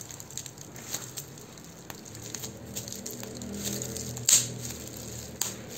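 Plastic bubble wrap crinkling and crackling as it is squeezed and flexed by hand, with scattered small clicks and one louder sharp snap about four seconds in.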